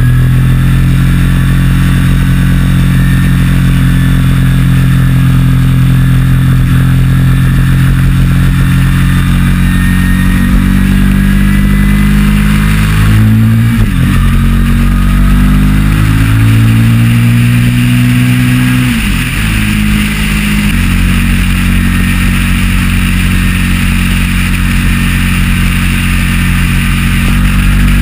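Sportbike engine running at highway speed under the rider, with wind rushing over the camera microphone. The engine note dips sharply and climbs back twice near the middle.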